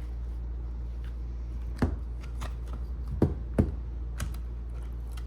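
Several sharp plastic clicks and snaps, the loudest two a little past the middle, as a pry tool works along the edge of a Nokia G21's heat-softened back cover and the cover comes apart. A steady low hum runs underneath.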